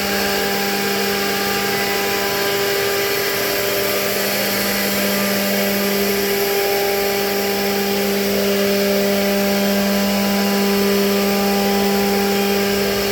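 CNC router spindle running at a steady speed while machining a WPC (wood-plastic composite) door panel: a constant hum with a broad hiss of cutting over it.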